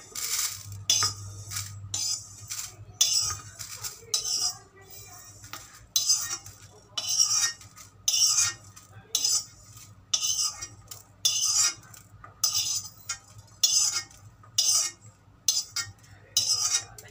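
Metal spoon scraping dry-roasted spice seeds (cumin, fenugreek, fennel) around and out of an empty metal kadai, in short repeated scrapes one or two a second.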